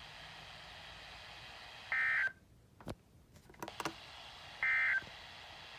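Two short, buzzy bursts of NOAA Weather Radio SAME digital data, each about a third of a second, nearly three seconds apart over a steady radio hiss that drops out briefly between them. Coming right after the warning's text, they are the end-of-message code that closes the alert.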